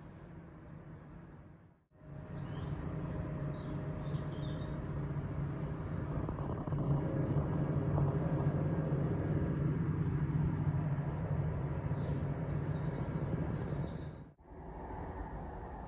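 Steady low hum with a rushing noise behind it, and birds chirping faintly over the top. The sound drops out briefly about two seconds in and again near the end.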